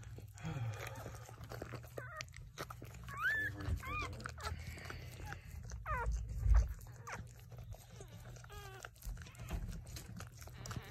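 A newborn puppy gives several short, high-pitched squeaks that rise and fall in pitch, over wet licking and rustling as the mother dog cleans it just after birth.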